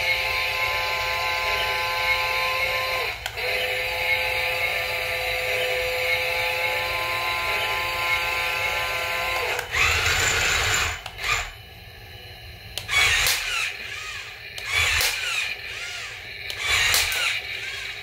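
Toy remote-control tank's small electric motors and plastic gearing whining steadily at one pitch for about ten seconds, with a brief break about three seconds in. After that come a few short, uneven bursts of sound.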